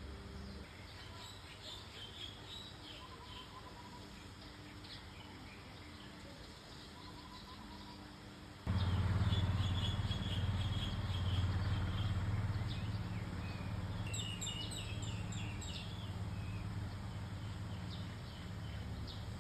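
Birds calling back and forth among trees, a run of short high chirps and trills. About nine seconds in, a steady low hum starts abruptly and becomes the loudest sound, with the chirping going on over it.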